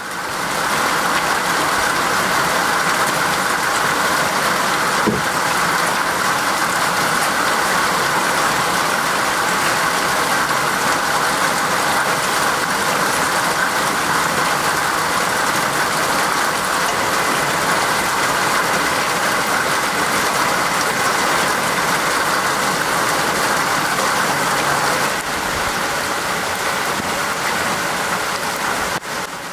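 Heavy rain pouring onto a swimming pond, mixed with the steady running of a pond vacuum's suction pump. The sound gets a little quieter near the end.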